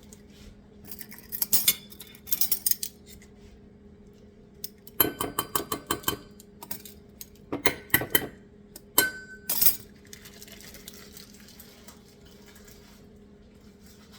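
Metal utensil clinking against a glass bowl or jar in several short bursts of quick clicks while measuring and mixing the dressing ingredients, over a steady low appliance hum.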